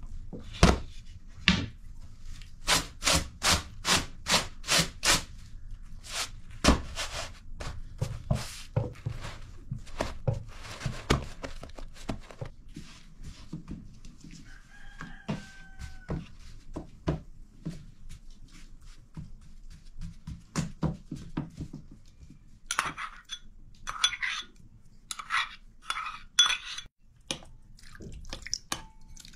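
Sharp knocks and taps of dough, tray and utensils being handled, with a quick even run of taps a few seconds in. Near the end come a string of short cackling calls from hens.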